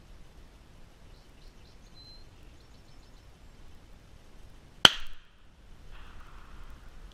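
A single shotgun shot about five seconds in, sharp and much the loudest thing, with a short ringing tail. Faint high chirps come before it and a brief rustle follows.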